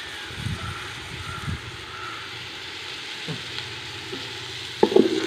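Onions, tomatoes and curry leaves sizzling steadily in hot oil in a cooking pot. Near the end a spoon clatters and scrapes loudly against the pot as the mixture is stirred.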